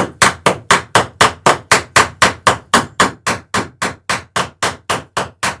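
Hammer striking rivets in a rapid, even run of about four blows a second, setting rivets in the planking strakes of a dory.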